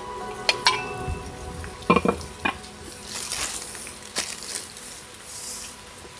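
Metal hot-sandwich maker knocking and clanking on a wooden table as it is set down and opened, the loudest clank about two seconds in. Then a plastic bread bag rustles twice as a slice of bread is taken out and laid in, over steady rain.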